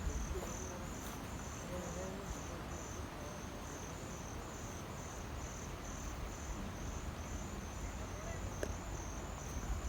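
An insect chirping steadily in the background, a high pulsing call repeating about twice a second, over low outdoor background noise.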